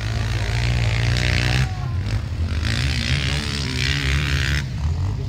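Off-road motorcycle engine revving: its pitch climbs in the first second or two, then rises and falls again. Wind buffets the microphone throughout.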